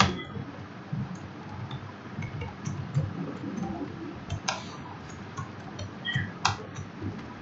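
Computer keyboard keys clicking irregularly as code is typed, with a couple of sharper clicks past the middle.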